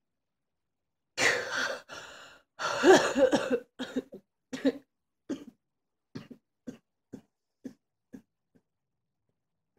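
A person's coughing fit: about a second in, a few hard, drawn-out coughs, then a string of shorter coughs roughly every half second, growing fainter until they die out.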